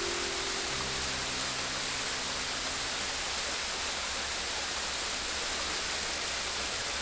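Steady rushing water, an even hiss with no breaks. Soft sustained music notes fade out about three seconds in.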